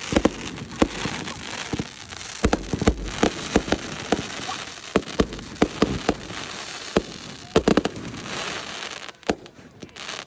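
Fireworks going off: many sharp bangs at irregular intervals over a continuous crackle. They thin out just before the end.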